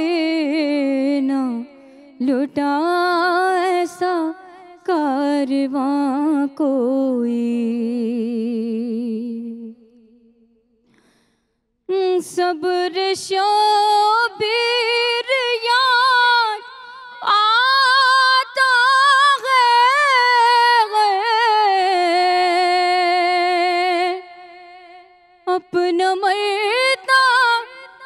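A woman's solo voice singing unaccompanied into a microphone, with long held notes that waver up and down. She stops for about two seconds near the middle, then resumes.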